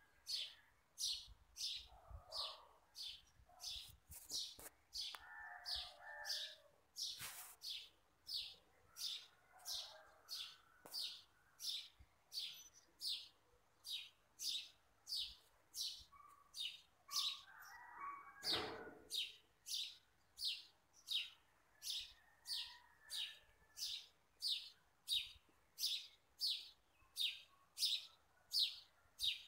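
A bird chirping over and over at a steady pace, about three sharp high chirps every two seconds, with faint soft rustles between them.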